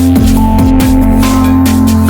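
Electronic music with a heavy bass line, booming kick drums that fall in pitch, and fast, busy percussion.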